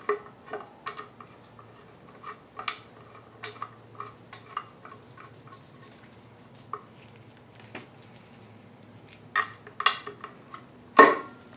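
Scattered light metallic clicks and clinks as the front timing cover of a 4.8 V8 engine, with its new gasket and seal, is worked into place on the block by hand. A few sharper clanks come near the end.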